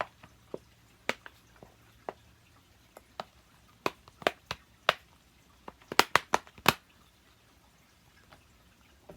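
Sharp plastic-and-silicone clicks from an Earth-themed simple-dimple fidget as its bubbles are pressed and pop, coming irregularly, with a quick run of about five near the six-second mark.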